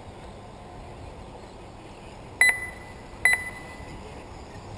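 Two short electronic beeps, a bit under a second apart, from the RC race's lap-counting system as cars cross the timing line, over a faint steady background.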